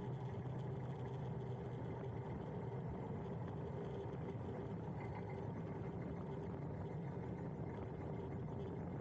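Steady road and wind noise from riding a Huck Cycles electric moped, with a low steady hum underneath.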